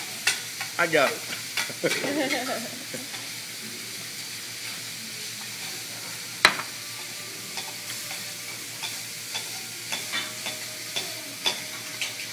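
Vegetables, shrimp and scallops sizzling on a steel hibachi griddle in a steady hiss, with metal spatulas scraping and clicking against the flat-top. A sharp clack about six and a half seconds in is the loudest.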